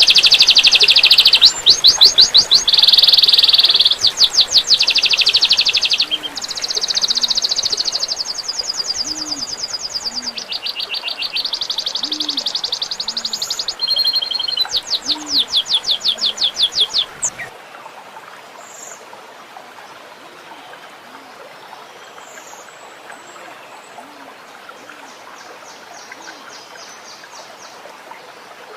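Songbird singing loud rapid-fire trilled bursts ('tembakan'), one fast trill straight after another, over trickling water. About two-thirds of the way through the bursts stop, leaving quieter trickling water and a faint high trill.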